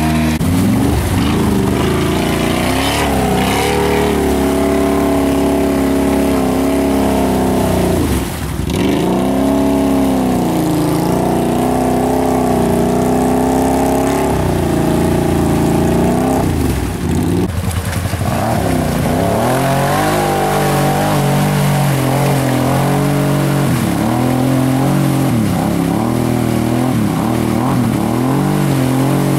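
ATV engines revving hard, the pitch holding high, then repeatedly dropping and climbing as the machines churn through mud. The sound breaks off briefly about eight seconds in and again about seventeen seconds in.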